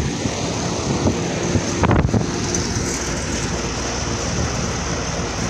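Running Carrier Comfort 13 air-conditioner condensing unit heard up close: a steady compressor hum under the rush of air from its condenser fan. There is one short knock about two seconds in.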